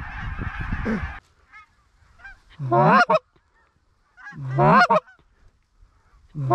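A flock of geese honking together, cutting off about a second in, then three loud, close goose honks about two seconds apart, each breaking from a low note up to a high one.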